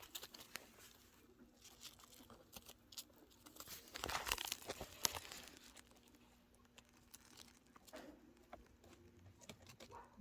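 Baby angora chinchillas scrabbling and rustling about, a scratchy string of small clicks and rustles that grows loudest for about a second around four seconds in.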